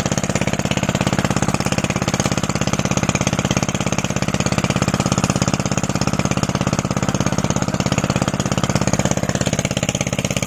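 Small engine running steadily at idle, its firing a fast, even rhythm.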